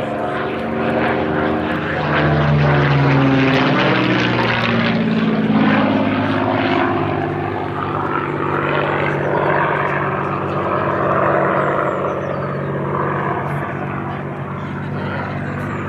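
Supermarine Spitfire's Rolls-Royce Merlin V12 engine in a flypast. The engine note drops in pitch over the first few seconds as the aircraft passes, then settles into a steady note.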